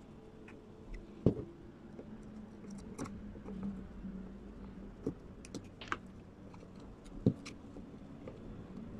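Scattered light clicks and knocks of hard objects being handled, with two louder knocks, one about a second in and one near the end, over a faint steady hum.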